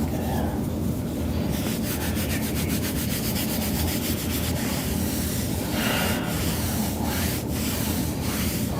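Steady rubbing noise, with faint quick ticks throughout and a few firmer ones between about six and seven and a half seconds in.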